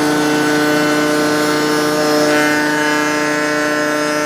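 Table-mounted router running at full speed with a steady high whine while a rail end is fed past the bit on a sliding jig to cut a tenon. A harsher cutting noise joins about two seconds in.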